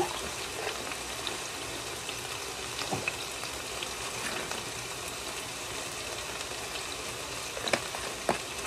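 Chicken sizzling in a frying pan: a steady hiss with small crackling pops. A few light knocks sound about three seconds in and twice near the end.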